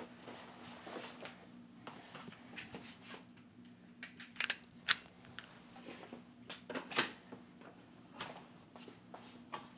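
Soft rustling of a leather jacket being pulled on, then several sharp clicks as a door handle and latch are worked and the door opens, over a steady low hum.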